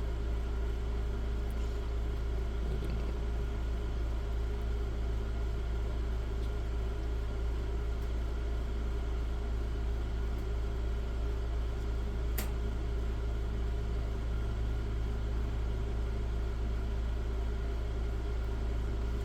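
Steady low hum with a single sharp click about twelve seconds in.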